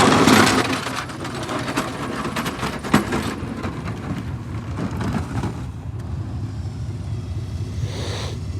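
A vehicle engine running steadily, under a loud rushing noise that fades away over the first couple of seconds, with a few clicks and knocks.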